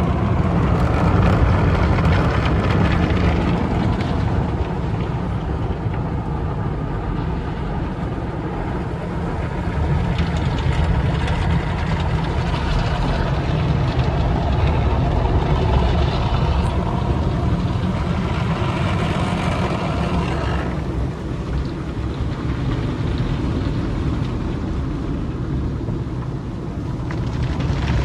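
Automatic tunnel car wash heard from inside the car's cabin: water and foam spraying onto the glass and body while the wash machinery runs, a steady loud rushing noise that swells louder several times.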